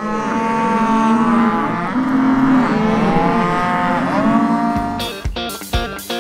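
A herd of cattle mooing and bawling, many long calls overlapping one another. About five seconds in, guitar music with a strong beat comes in.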